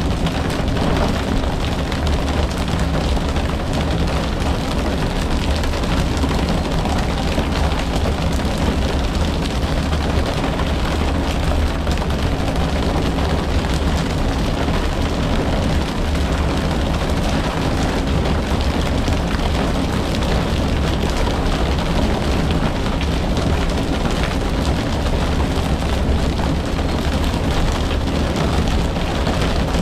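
Fishing boat's engine running steadily as a low hum, under a constant rushing noise of wind and water.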